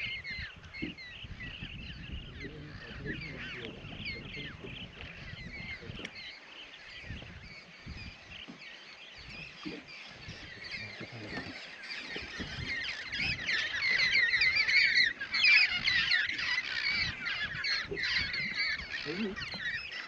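A flock of birds squawking and chirping together in many short, overlapping calls, the chorus swelling much louder about twelve seconds in, over a low rumble.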